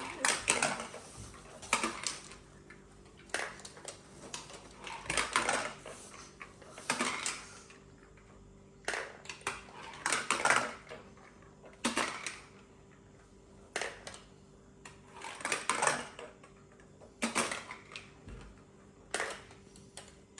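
Balls rolling and clattering down a marble run built from plastic magnetic tiles, a short rattling clack every second or two as each one runs through the track.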